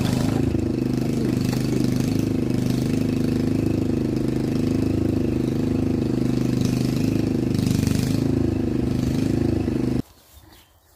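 A small engine running steadily at a constant speed, with a low, even hum. It cuts off suddenly near the end.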